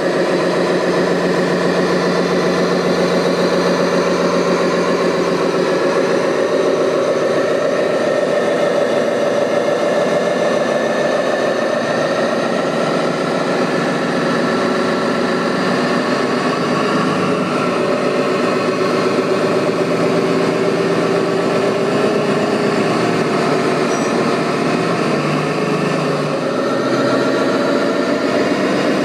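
Engine running steadily at an idle-like pace, its pitch drifting only slightly.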